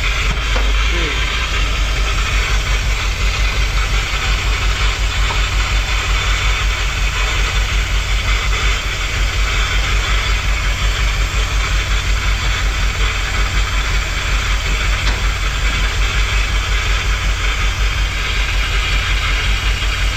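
Freshly installed Ford 302 small-block V8 idling roughly, with a steady uneven pulsing beat of about two to three lopes a second. The rough running is what the owner believes comes from the spark plug wires being on the wrong one of the 302's two firing orders, with the timing already close.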